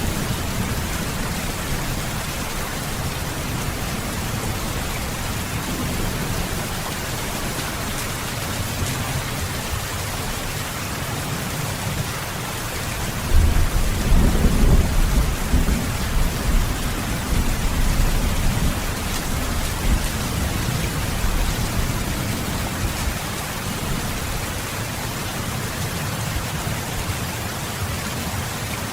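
Steady rain falling, with a low rumble of thunder that breaks in about halfway through and slowly dies away over several seconds.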